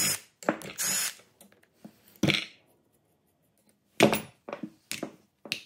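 Cordless driver briefly spinning out the screws of a steel bracket on a motorcycle ABS pump, in short runs. About four seconds in comes a sharp metallic clatter, the loudest sound, then light clinks of the loose bracket and screws being handled.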